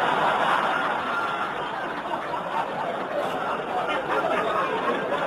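A hall full of people laughing and chattering together, loudest at the start and slowly dying down, with a few voices showing through near the end.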